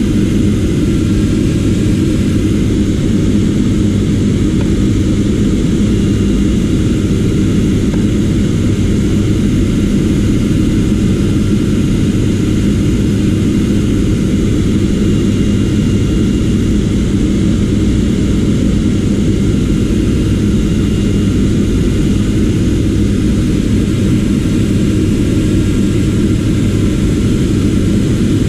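A steady machine noise: a motor running with a low, even hum that does not change.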